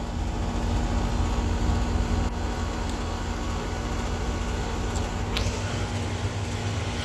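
Steady low machine hum over a constant low rumble, with two faint ticks partway through.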